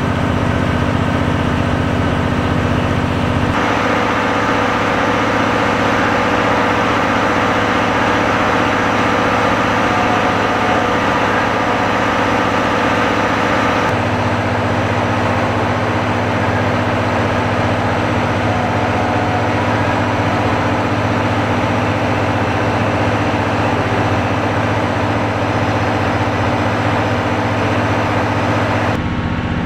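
A train's diesel engine running steadily with a low hum. The sound changes abruptly about 3.5 seconds in, again about halfway and once more near the end.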